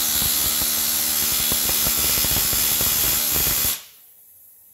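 Pneumatic rivet gun hammering a red-hot steel rivet into a Jeep frame: a rapid, loud hammering with a high hiss. It stops abruptly near the end as the rivet is set.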